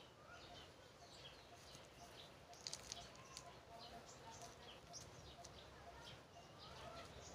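Faint chirping of small birds, many short calls repeating throughout, with a few soft clicks about two and a half seconds in from potting mix and a small plastic pot being handled.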